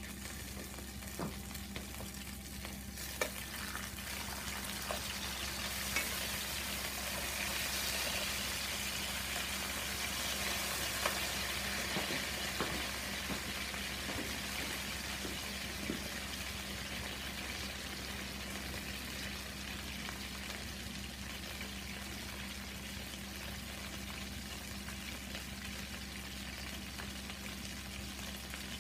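Karaage chicken deep-frying in oil in a pan over a charcoal shichirin: a continuous sizzling hiss with occasional sharp pops, a little louder around the middle. A steady low hum runs underneath.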